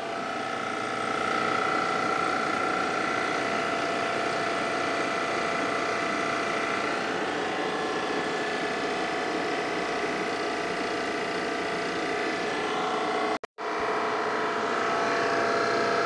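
Inficon refrigerant recovery machine running steadily, a motor-and-compressor hum with several fixed tones, as it pulls R-134a refrigerant out of a car's air-conditioning system. It cuts out briefly a little past 13 seconds in, then resumes.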